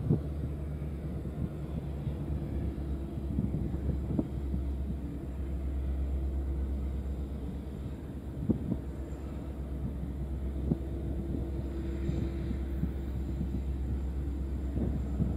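Two EMD 710-engined diesel locomotives, an SD90MAC-H2 and an SD70ACe-P6, running in the distance as they haul an empty iron ore train out of the port. They make a steady low drone, with a few sharp knocks.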